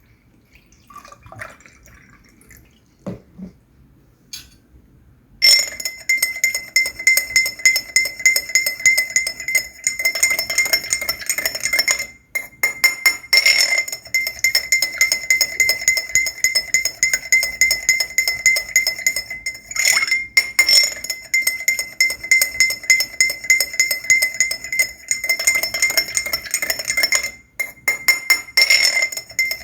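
Teaspoon stirring coffee in a glass, clinking rapidly against the side so that the glass rings at a steady pitch, with a few brief pauses. A few soft knocks and clinks come before the stirring starts about five seconds in.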